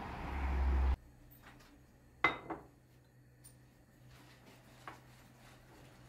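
A steady outdoor rumble cuts off after about a second. Then a porcelain teapot and its lid are set down on a stone countertop: one sharp clink with a brief ring, a lighter clink just after it, and a faint tap a few seconds later.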